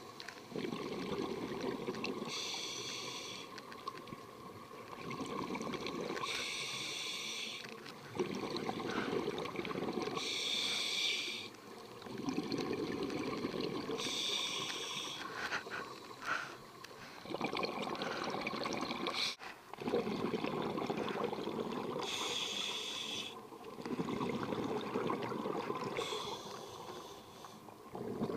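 Scuba regulator breathing underwater: about six slow breaths, each a short hiss of inhalation through the regulator followed by a longer gurgle of exhaled bubbles.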